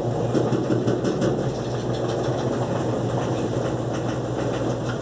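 Electrolux LTE12 top-loading washing machine in its spin cycle: a steady motor and drum hum with continuous rattling as it spins a bunched-up, unbalanced load, the machine shaking on its suspension.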